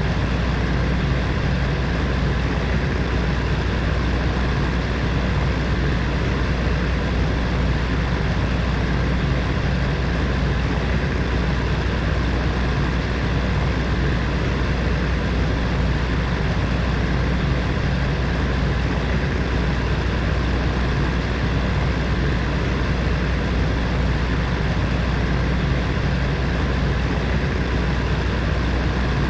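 Electric heater fan running steadily, a constant whooshing air noise with a low hum underneath.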